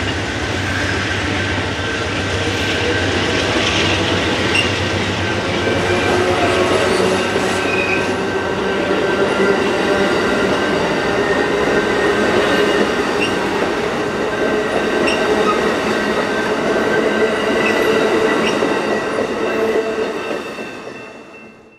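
Amtrak Superliner passenger cars rolling past on departure: a steady rumble of steel wheels on the rails with a held wheel squeal and a few faint clicks. The sound fades out near the end.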